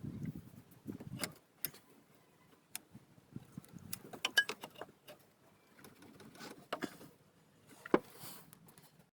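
Scattered clicks and knocks of tools and parts being handled while a power steering reservoir is worked free, the sharpest about four seconds in and again near the end. A low muffled rumble runs under the first second and a half.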